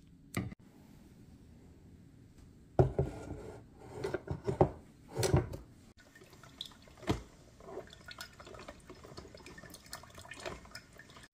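A few sharp clunks, then a coffee machine dispensing a thin stream of coffee that trickles and drips into a ceramic mug.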